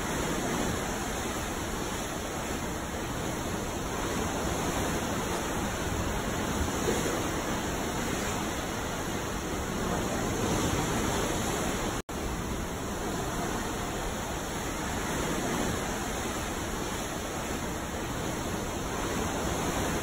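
Ocean waves washing in a steady, even rush that swells gently now and then, with a momentary cut to silence about halfway through.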